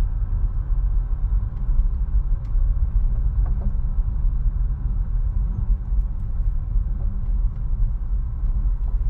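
Car driving along a gravel road, heard from inside the cabin: a steady low rumble of tyres and engine, with a few faint ticks.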